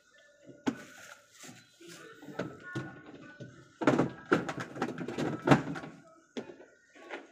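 A plastic drawer being handled and fitted into a plastic chest-of-drawers frame: plastic knocking, clicking and rattling. There is a sharp click about a second in, and a busy run of knocks from about four seconds in.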